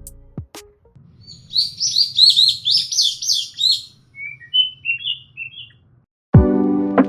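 A small bird chirping: a quick run of about ten high chirps, then a few softer, lower ones, over a faint low hum. Background music fades out at the start and comes back near the end.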